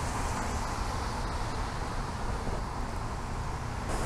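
Steady outdoor background noise: a low rumble of wind on the microphone under a hiss that grows brighter near the end.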